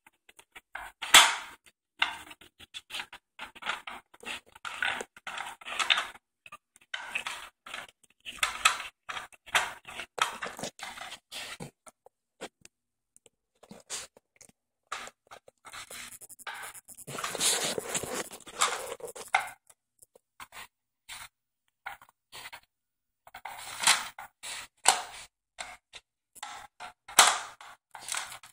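Greyhound puppy nosing and pawing at a plastic puzzle feeder, its sliding covers clacking and scraping against the base in irregular bursts. Partway through there is a longer stretch of rustling noise.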